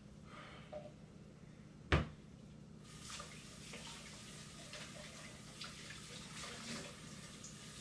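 A kitchen faucet is turned on and runs water steadily from about three seconds in, after a single sharp knock about two seconds in.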